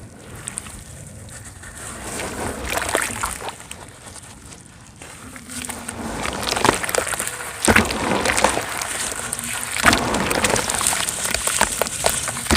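Dry cement chunks crumbling and crackling in the hand, with wet sloshing as the pieces fall into cement paste. Sparse at first, then dense crackling and sharp snaps from about six seconds in.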